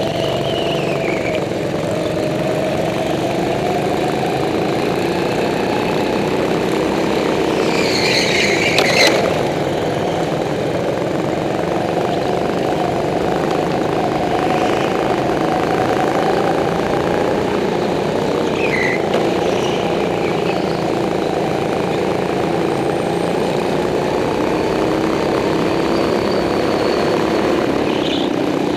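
Go-kart engines running under the driver, the pitch rising and falling with the throttle through the corners. Short tyre squeals come now and then, the loudest with a knock about nine seconds in.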